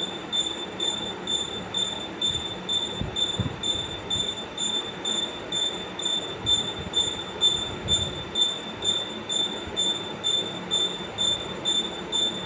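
A mechanical squeal, high-pitched with an overtone, pulsing evenly about twice a second over a low rumble, like a part squeaking once per turn of something rotating.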